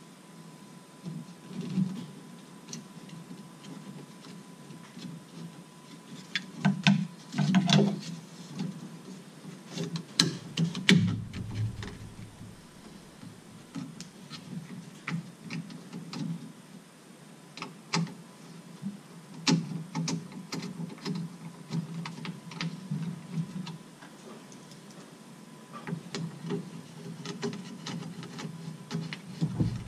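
Hand work on the Mercedes SLK230 Vario roof's flip-shelf mechanism: scattered clicks, taps and rubbing of its plastic and metal parts as they are handled and fitted, in irregular clusters with the busiest about a third of the way in.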